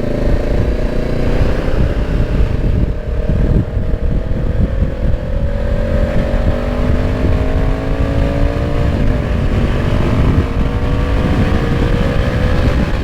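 Honda CB500X's parallel-twin engine, through an aftermarket exhaust, pulling steadily up in revs on the move, with a brief dip in pitch about nine seconds in before it climbs again. Heavy wind rumble on the microphone runs underneath.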